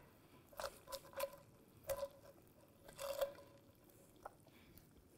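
Metal tongs clicking and tapping against a pan as a roast chicken is lifted out of it: about half a dozen faint light taps, the last about four seconds in.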